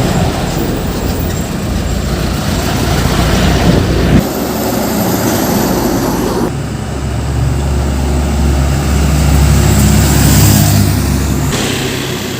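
Road traffic with heavy diesel trucks passing. The sound changes abruptly twice. Through the second half a truck's diesel engine drones loudly, low and steady, for about five seconds before fading.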